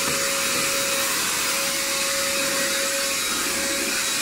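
Small handheld vacuum cleaner running steadily while vacuuming crumbs off a floor mat, its motor giving a constant whine over the rush of air.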